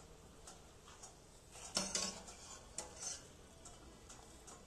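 Faint clinks and knocks of a metal kitchen utensil against cookware, a few separate strikes, the loudest about two seconds in.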